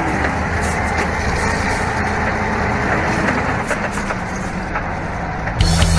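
Engines of a heavy lorry and a wheeled tractor running on a road, a steady rumbling noise. Music comes in suddenly near the end.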